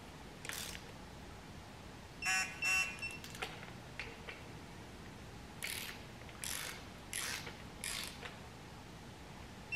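Ratcheting torque wrench clicking in short bursts as bolts on an LS V8 engine block are run down to 18 foot-pounds: two rapid ratchet runs about two seconds in, then four shorter strokes about a second apart later on.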